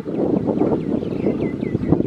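Kubota M6040SU tractor's diesel engine running, heard through wind buffeting the microphone, with a short sharp knock near the end. Faint short high chirps repeat throughout.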